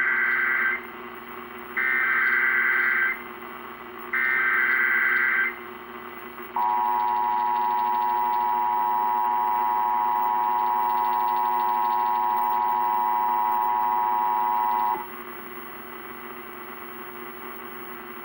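Emergency Alert System broadcast test. Three bursts of the screechy SAME header data tones come first, the first already under way; each lasts about a second and a half. They are followed by the two-tone EAS attention signal, held steady for about 8 seconds and then cut off. A low steady hum lies under it all.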